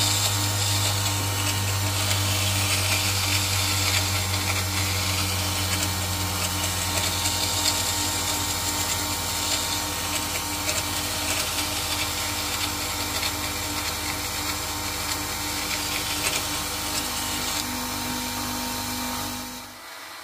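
Grinder motor running with a steel woodturning chisel held against its stone wheel: a steady hum under a continuous grinding hiss, as a 45-degree bevel is ground onto the chisel's tip. The sound cuts off shortly before the end.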